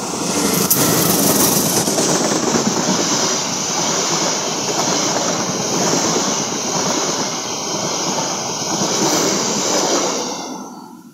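Sri Tanjung passenger train passing close by over a bridge, its wheels and carriages making a loud, dense, steady rumble. The sound swells in the first second and dies away near the end.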